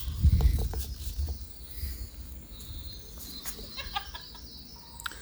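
Faint bird calls, a few short high notes scattered through, over a steady low rumble.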